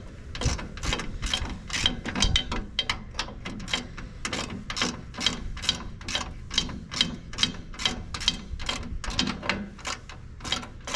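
A socket ratchet wrench clicking in quick runs of sharp clicks, with short pauses between strokes, as a 9/16 bolt is worked loose on an old tractor's rusty bracket.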